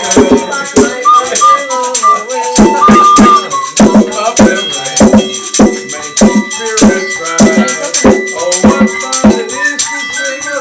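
Instrumental Christmas music with a steady beat and shaken percussion like jingle bells.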